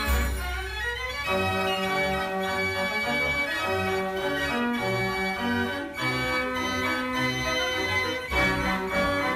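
89-key Marenghi fair organ playing a tune on its pipes, with held melody notes over a moving bass line; the deep bass drops out about a second in and comes back near the end.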